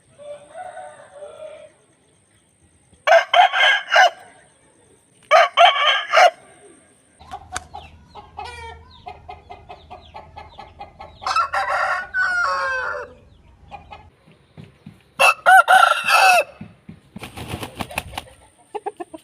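Aseel roosters crowing, about five separate crows one after another, with shorter clucking calls between them in the middle.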